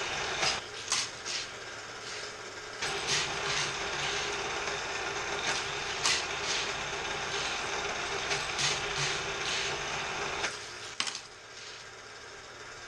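Hot Wheels Super-Charger booster's motor whirring steadily while a die-cast Redline Lola GT70 laps the plastic track, with sharp, irregular clacks and rattles as the car is shot through the spinning booster wheels and runs over the track. The whir drops away about ten and a half seconds in, after a last clack.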